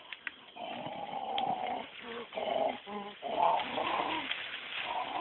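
Dog- or wolf-like growling in several short rough bouts, with a brief pitched cry about three seconds in.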